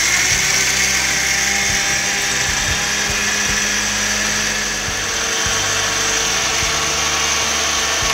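Electric mixer grinder running steadily, grinding a wet masala paste of roasted sesame, peanuts, poppy seeds and coconut with milk; the motor's whine cuts off near the end.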